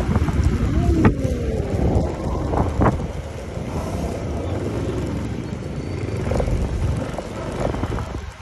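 Yamaha scooter ridden slowly along a street: a steady low rumble of engine, road and wind on the microphone, with a few sharp knocks in the first three seconds.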